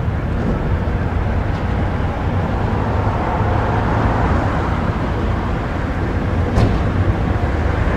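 Steady outdoor road-traffic rumble with a hiss above it, and a brief tick about six and a half seconds in.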